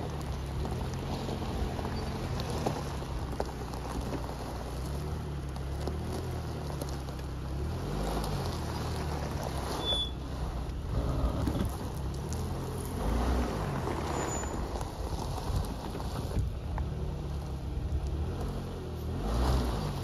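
Car tyres crunching and rolling over loose river gravel, with the car's engine running low underneath and swelling a few times.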